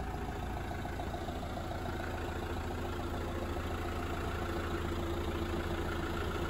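Chausson motorhome's engine idling steadily, heard from outside the vehicle. It has been left running to warm up and clear ice and mist from the windscreen.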